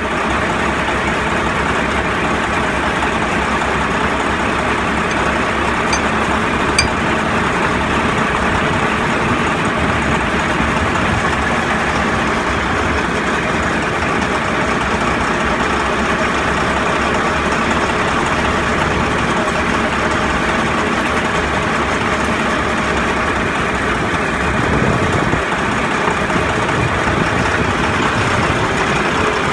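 Bulldozer's diesel engine running steadily.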